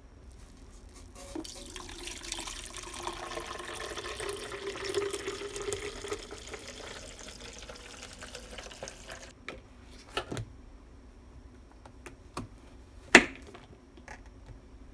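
Liquid poured from a ladle into a plastic container, a splashing, filling sound lasting about eight seconds that stops suddenly. Then a few knocks on a plastic cutting board, one sharp and loud near the end.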